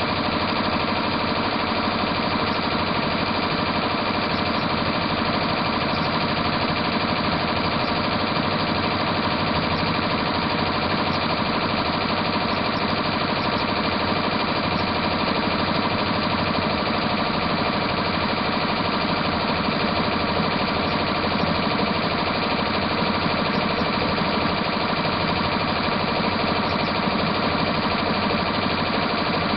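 Multi-needle embroidery machine stitching a design at speed: a steady, rapid mechanical clatter of the needle going up and down through the fabric.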